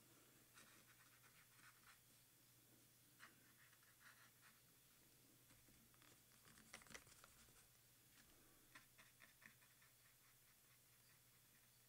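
Near silence with faint, soft scratches of a water brush pen colouring on a paper card, coming in scattered short runs, the loudest cluster about seven seconds in.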